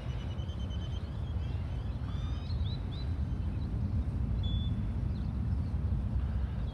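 Steady low outdoor rumble, with small birds chirping and whistling over it: a held whistle in the first second, then a quick run of rising chirps two to three seconds in.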